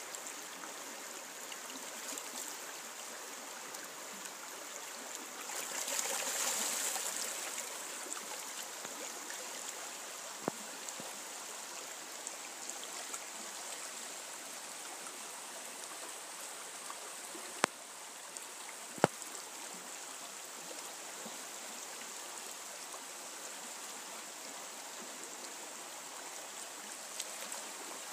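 River water flowing and rippling steadily, swelling to a louder rush for a couple of seconds about six seconds in. Three sharp clicks stand out above the water, one a third of the way through and two close together past the middle.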